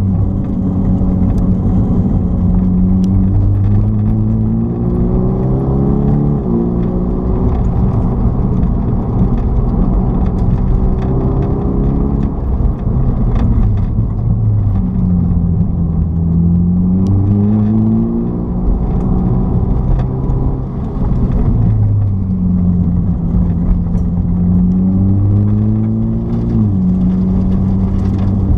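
Car engine heard from inside the cabin, accelerating hard about four times: each time the engine note climbs steadily in pitch for a few seconds, then drops sharply as the driver lifts off, settling back to a lower steady note between runs.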